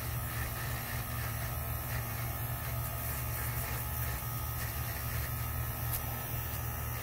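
Small handheld electric nail file (e-file) with a mild sanding bit running steadily with a low hum, used to sand down and blend plastic nail tips into the natural nails.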